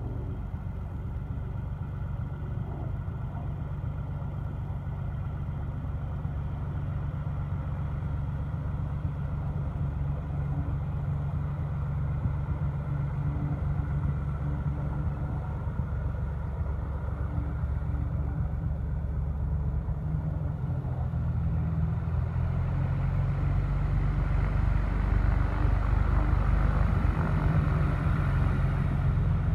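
Light single-engine airplane's piston engine and propeller running at taxi power, a steady drone that grows gradually louder as the plane taxis closer.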